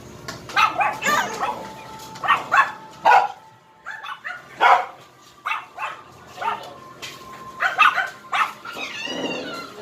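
Beagle barking and yipping in short repeated calls, with one longer rising-and-falling whine near the end.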